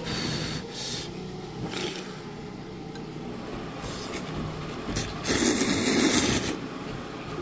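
A person eating janchi-guksu noodles in anchovy broth with kimchi, slurping and chewing, in short noisy bursts. The loudest burst comes about five seconds in and lasts a little over a second.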